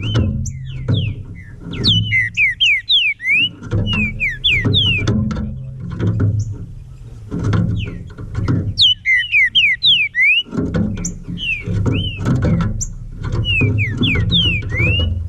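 Green-winged saltator (trinca-ferro) singing phrases of quick, clear slurred whistles, several phrases with short pauses between them. Beneath the bird runs background music with a steady low beat.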